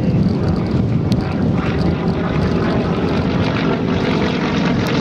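Large-scale radio-controlled model Yak-52 in flight, its engine and propeller running steadily.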